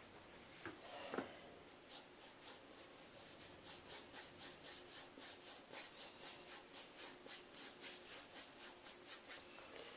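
Paintbrush bristles scratching across a canvas in quick, short strokes, about four a second, settling into a steady rhythm a few seconds in.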